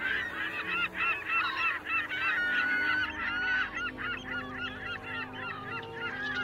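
A flock of gulls calling at once: many short, overlapping cries, rising and falling in pitch.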